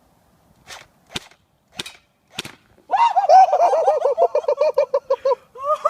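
Airsoft rifle firing four sharp shots, each a little over half a second apart. They are followed by a loud, high, rapidly pulsing call of about six pulses a second, the loudest sound here.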